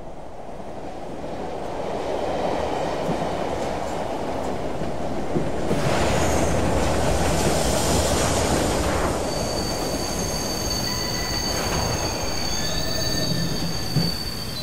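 Subway train pulling into a station: a dense rumble that builds as the cars pass, then several high, steady squeals from the wheels and brakes as it slows to a stop. A sharp knock comes just before the end.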